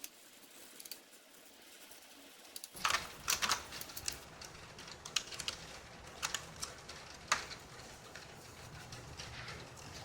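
Sharp clicks and taps of small hard parts being handled while a laptop is worked on. There is a quick cluster of clicks about three seconds in, then single clicks every second or so, over a low handling rumble.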